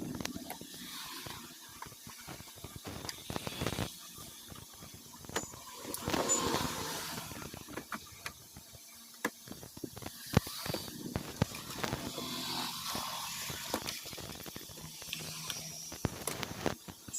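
Irregular clicks, taps and scrapes of a technician's hand tools and plastic parts as an LED TV is worked on opened up.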